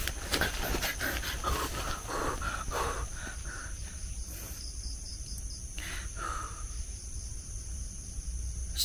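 Crickets and other night insects chirring steadily, with faint irregular close-by sounds in the first three seconds.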